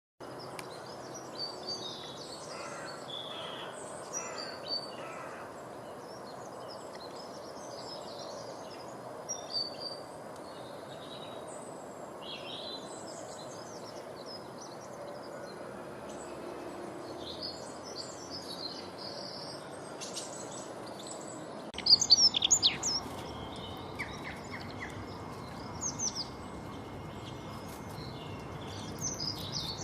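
Several birds chirping and calling in short, scattered notes over a steady background hiss, with a louder cluster of sharp calls about 22 seconds in.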